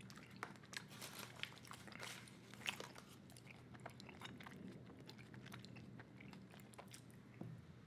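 Close-miked chewing of a big mouthful of bubble gum: faint, irregular mouth clicks and smacks.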